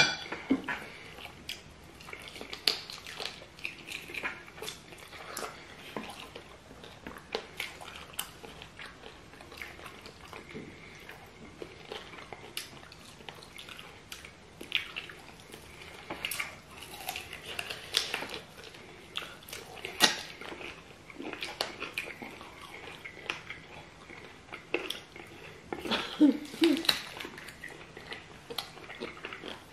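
Close-up eating sounds of two people chewing and biting stewed chicken feet: wet mouth sounds broken by many short clicks and crunches.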